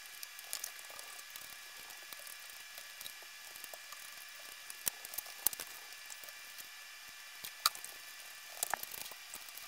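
Faint scattered clicks and light knocks of a ceiling fan being handled and taken down from its mount, over a steady low hiss with a thin high whine. The sharpest clicks come a few around the middle and in a cluster near the end.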